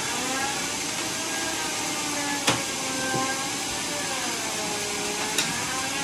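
Homemade teak sawmill's machinery running, a steady hiss with a whine that wavers up and down in pitch. Two sharp knocks, a few seconds apart, come from the wood being handled.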